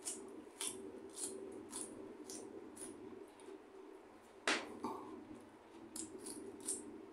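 Close-up chewing with wet mouth clicks, about one every half second or so, over a steady low hum. A sharper click stands out about four and a half seconds in.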